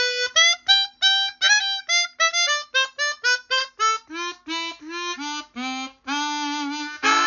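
Easttop EAP-12 12-hole chromatic harmonica played: a run of short separate notes, about three a second, working down in pitch, some bent slightly at the start. Near the end comes a long held low note, then a full chord.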